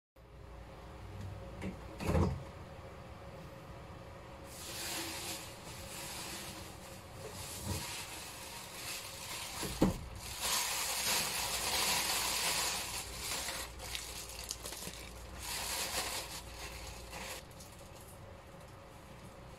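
Plastic bags rustling and crinkling in uneven bursts as they are handled, with a couple of short knocks.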